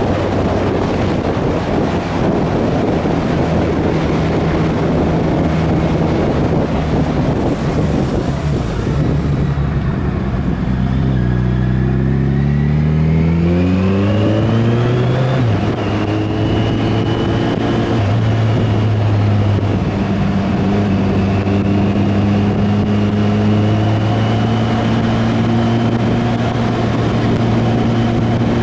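Motorcycle engine and wind rush at road speed. The wind noise eases about eight seconds in, then the engine climbs in pitch as the bike accelerates, drops sharply on an upshift about halfway through, and runs steadily after.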